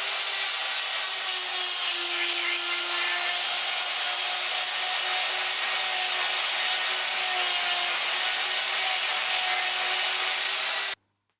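Die grinder running with a mounted grinding point, grinding out a hole in metal: a steady, hissing grind over a motor whine that wavers slightly in pitch under load. It cuts off suddenly near the end.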